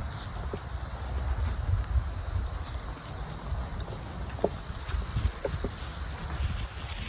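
A steady late-summer chorus of insects, a continuous high-pitched trilling, over a low rumbling underneath.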